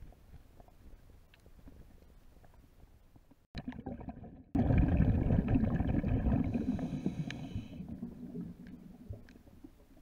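Underwater sound picked up by a submerged camera: faint crackling clicks, then a few seconds in a sudden loud gurgling rumble with a humming tone over it, which fades away over about four seconds.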